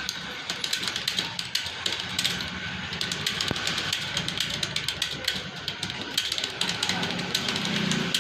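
Typing on a computer keyboard: rapid, irregular key clicks, several a second.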